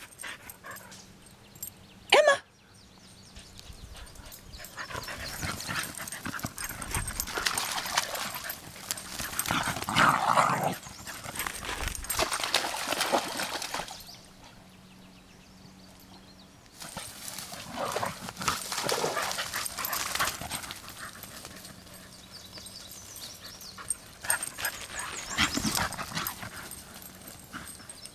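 Dogs, a soft-coated wheaten terrier among them, out in the grass: one short, sharp bark about two seconds in, then long stretches of rustling noise that swell and fade.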